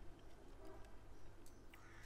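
Quiet chewing of food with the mouth closed, with a few faint soft clicks, over a low steady hum.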